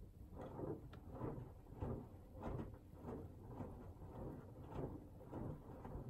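Hoover Axi washing machine drum turning with water in it, the wash water and laundry sloshing in a steady rhythm of swishes, a little under two a second, over a low rumble. The machine is on its whites 90 programme in its sensing stage.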